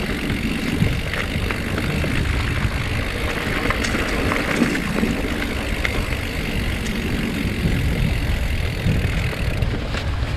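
Steady rumbling wind buffeting the microphone, with a few faint light knocks.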